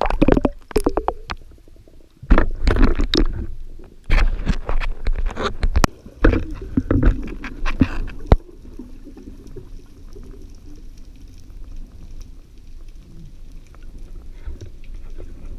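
Water sounds around a spearfisher in the sea: loud, irregular splashing and gurgling in several bursts over about eight seconds, then a steady low rumble of water.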